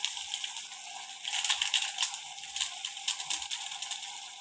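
Chicken and vegetables sizzling steadily in a pan, with the crinkling of a plastic spice-mix sachet being shaken and tapped empty over it, thickest between about one and three seconds in.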